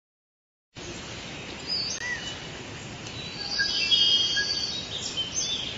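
Forest ambience: a steady hiss with scattered bird chirps and whistles, starting about three-quarters of a second in.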